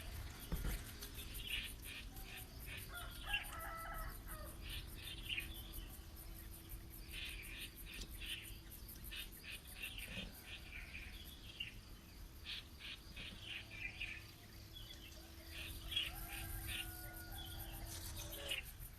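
Outdoor bird calls: repeated short, high chirps, with two longer, lower calls about three seconds in and near the end, over a faint steady hum.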